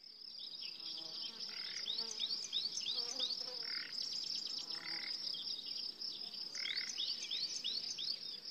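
Nature ambience: a steady high-pitched insect drone, with groups of quick chirps a few times.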